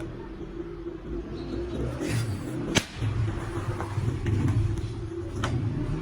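A machine running with a steady low rumble and hum, with one sharp click about halfway through.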